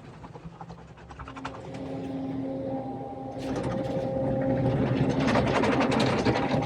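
Automatic touch car wash machinery working over the Jeep, heard from inside the cab over the engine's low idle. About a second in, a machine's whine comes in. From about three and a half seconds a dense clattering wash of brushes and spray builds against the roof and body, loudest near the end.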